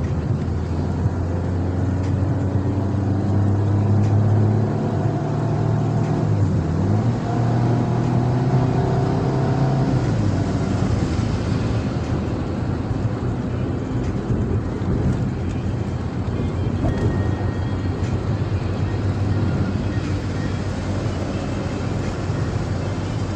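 Car engine heard from inside the cabin, rising in pitch as the car accelerates, dropping once about six or seven seconds in as it shifts up, then rising again. After about ten seconds the engine sinks into steady road and tyre noise at cruising speed.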